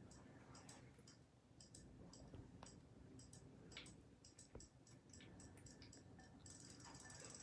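Faint, irregular ticking clicks, a few a second, from battery-powered robotic toy fish swimming in a glass bowl of water.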